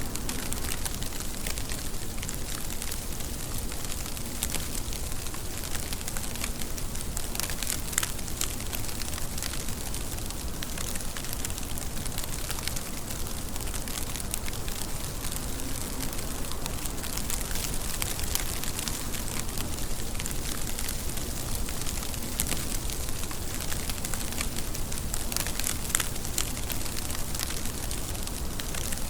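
Steady rain pattering on a surface: an even hiss of many drops with frequent small ticks, and a couple of sharper drop hits about 8 seconds in and near the end.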